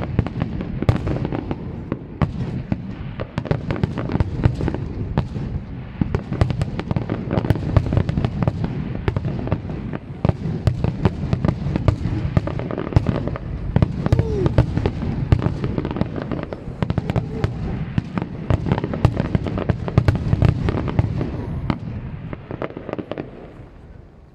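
Professional fireworks display: a dense, continuous barrage of shell bursts, bangs and crackle that thins out and dies away near the end.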